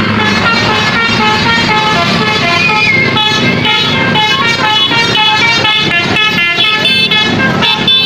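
Tour-bus basuri 'telolet' musical horns playing a fast, many-noted melody, several tones sounding at once. Underneath is the rumble of a crowd of motorcycle engines.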